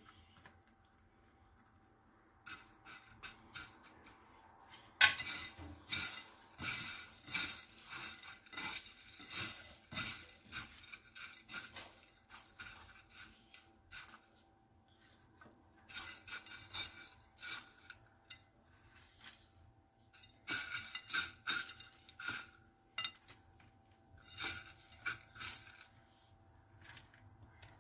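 Irregular crackling and rustling of crisp deep-fried shredded potato being pressed by hand around meatballs, with clicks of chopsticks and dishes. A sharp click about five seconds in is the loudest sound.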